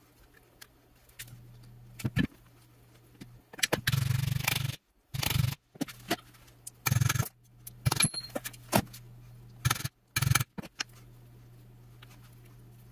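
Several short bursts of metallic clattering and scraping as tools and rivet hardware are handled on a steel-topped workbench, over a faint steady hum.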